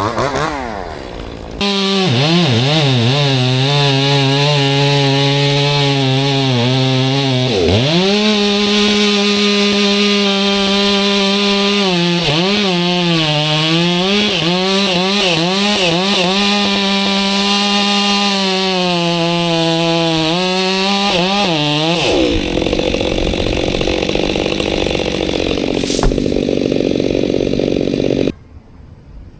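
Chainsaw engine running at high revs, its pitch dipping and recovering several times as the throttle is worked, then turning rougher and noisier for several seconds before cutting off abruptly.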